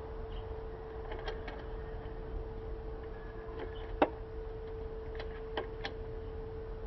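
Scattered light clicks of tools and parts being handled during work on a motorcycle's rear wheel, with one sharp knock about four seconds in, over a steady hum.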